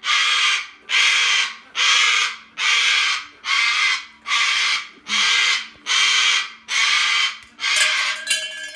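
A cockatoo screaming over and over, about ten harsh screeches roughly one a second. Near the end clinking starts up under the last calls.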